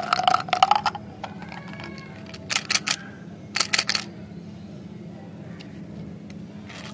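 Small hard white mints clattering and rattling into a plastic bottle, then two short runs of quick plastic clicks and candy rattles as plastic candy containers are handled.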